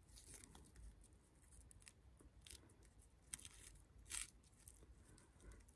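Faint crackling and tearing as fingers pick at the crisped skin of a pit-roasted walleye and the dry greens wrapped around it. A few sharper crackles stand out, the strongest about four seconds in, against near silence.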